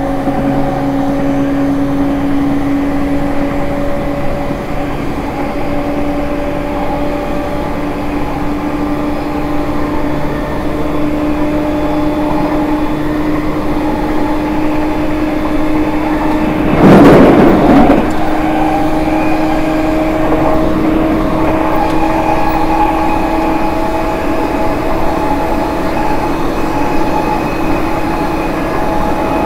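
Unrenewed Hitachi IGBT VVVF inverter and traction motors of an E231-1000 series EMU, heard at the gangway between cars: a steady whine over the running noise, rising slowly in pitch as the train gains speed. About two-thirds of the way through, a loud noisy burst lasts about a second.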